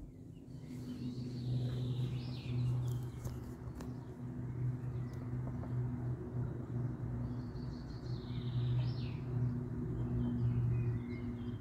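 Antonov An-26B's twin turboprops droning high overhead: a steady low hum with a deeper and a higher tone together. Birds chirp a few times above it.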